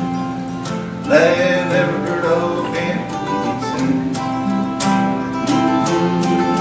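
Acoustic guitar strumming the closing bars of a country song, with a short wordless sung note about a second in.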